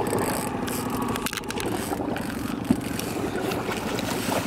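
A boat's motor running steadily, with one sharp click nearly three seconds in.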